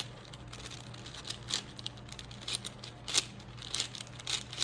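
A YuXin 4x4 speed cube being twisted rapidly by hand to scramble it: quick, irregular clicks and clacks of the plastic layers turning.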